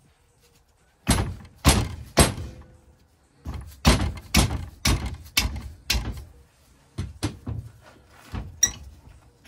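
Hammer blows on a punch against a rusty cast-iron Lister vaporiser casting, about a dozen sharp metallic strikes. They come as three quick blows, then a run of about two a second, then two pairs. The part is seized, really tight, and does not shift.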